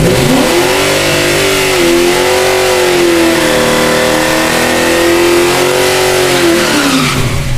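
Burnout of a 1971 Chevelle's 505-cubic-inch big-block V8: the engine winds up steeply, is held at high revs with small wobbles for about six seconds while the rear tyres spin and smoke, then drops back near the end.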